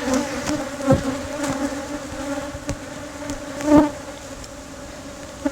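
Honeybees buzzing around an open hive in a steady hum, with two short knocks, about a second in and near four seconds.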